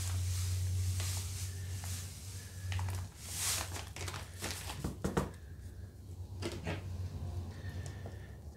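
Salt poured from a bag into a plastic food container, a hissing pour with rustling, followed by a few light clicks and knocks as the plastic box and its lid are handled. A low steady hum runs underneath.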